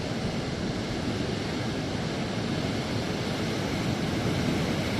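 Steady rushing noise of rough sea surf mixed with wind buffeting the microphone, with no breaks or pitched sound.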